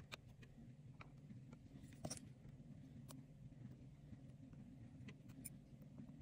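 Near silence: a faint low hum with a few small, sharp clicks and taps scattered through it.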